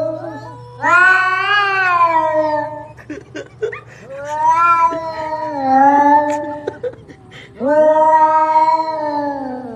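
Domestic cat yowling: three long, drawn-out meows, each rising and then sliding down in pitch, with short gaps between them.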